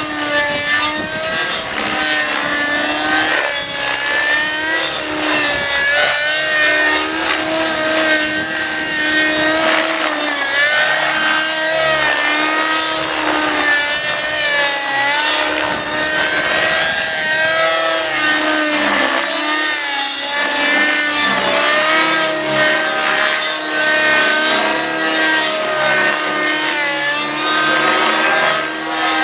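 Nitro (glow-fuel) two-stroke engine of a 50-size Compass 3D Plus RC helicopter running at high revs in aerobatic flight. Its pitch keeps dipping and recovering as the load changes.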